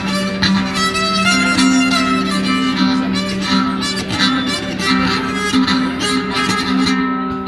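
Electric skullharpa, a bowed keyed fiddle, being played: a bowed melody over steady drone notes.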